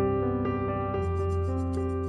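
Calm background music on a piano-like keyboard, held notes changing about every half second.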